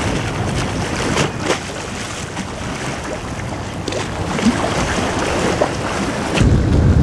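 Wind buffeting the microphone over a noisy waterfront background, with a few faint clicks. The low rumble gets louder near the end.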